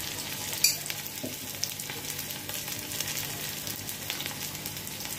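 Garlic, green chillies and cumin frying in hot desi ghee in a small tadka pan: a steady sizzle with scattered crackles. A sharp click sounds just under a second in.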